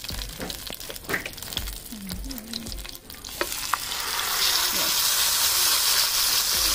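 Marinated fish going into hot coconut oil with curry leaves. At first there is a quieter crackle with a few clicks, then about four seconds in the sizzle jumps up loud and holds steady as the fish starts to fry.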